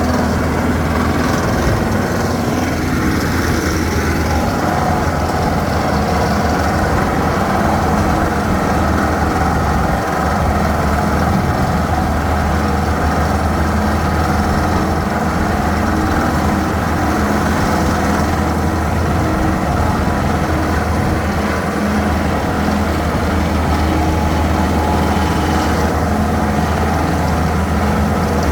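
Heavy engine of construction machinery running steadily at an even pitch, with a strong low hum and no change in speed.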